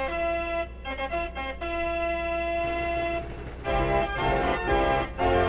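Organ music playing held chords that change every second or so, turning fuller and busier about three and a half seconds in.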